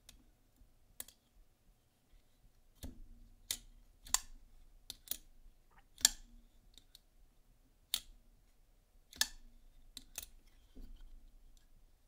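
Kunwu Pulsar folding knife being worked open and closed by hand, with its new, stronger springs: about a dozen sharp metallic clicks, unevenly spaced, roughly one a second.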